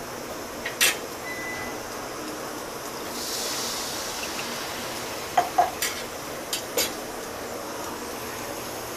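Water poured from a steel tumbler into a hot metal kadai of fried masala, hissing and splashing for about a second and a half, the water added to turn the masala into gravy. A few sharp clinks of utensils against the pan come before and after the pour.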